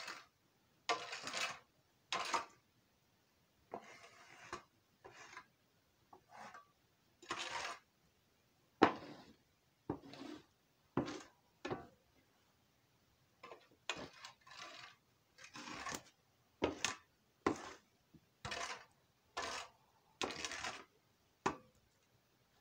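Metal shovel scraping and scooping donkey manure off the stall floor, in short strokes about one a second.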